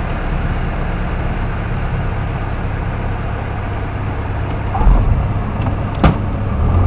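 Cockpit noise of a Piper PA28-161 Warrior: its four-cylinder Lycoming engine and propeller running steadily, with airflow noise over the cabin. Near the end come a low thump and, about a second later, a sharp knock as the wheels meet the runway.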